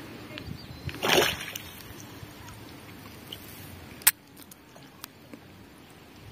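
A brief water splash about a second in, then a single sharp click a few seconds later.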